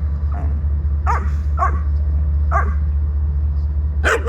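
Dogs barking and yipping in play: a few short barks spread through, then a louder quick run of barks near the end, over a steady low rumble.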